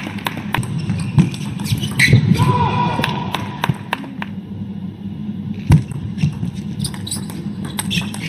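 Table tennis ball repeatedly clicking off bats and the table in quick succession during rallies, with a brief voice calling out about two seconds in.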